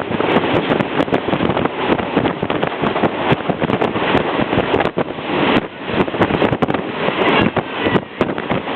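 Passenger train running, heard at an open carriage window: wind buffeting the microphone over a steady rush of track and carriage noise, with frequent sharp knocks and rattles.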